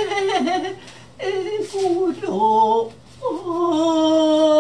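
A woman singing unaccompanied in short phrases broken by pauses, then holding one long note with a wavering pitch from about three seconds in.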